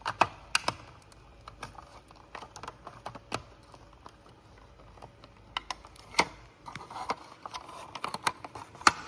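Irregular clicks and taps of hard plastic being handled: hands working the battery compartment of a smoke detector to get the old battery out, with a soft rustle near the end.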